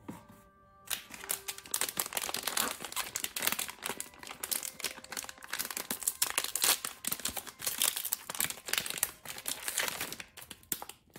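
Foil blind-box pouch crinkling as hands tear it open and pull it apart: a dense run of crackles that starts about a second in and stops shortly before the end.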